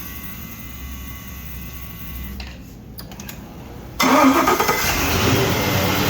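5.7-litre engine starting: a steady whine, then about four seconds in the engine catches suddenly and runs. It starts now that a broken wire has been repaired and the 5-volt reference is restored.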